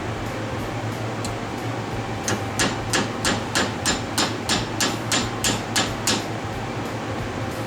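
A hammer beating a titanium sheet into shape for a motorcycle silencer end cap: about a dozen sharp blows at an even pace of roughly three a second, starting a couple of seconds in and stopping a little before the end. A steady low hum runs underneath.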